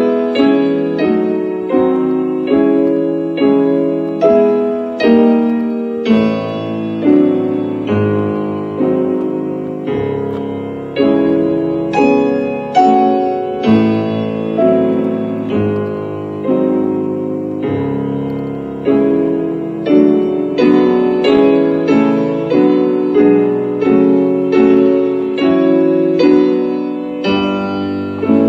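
Piano playing a slow passage of struck chords, a new chord about every second, each ringing and fading before the next.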